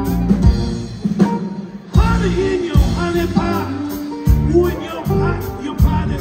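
Live blues band playing: a resonator guitar over a drum beat, with a man singing from about two seconds in.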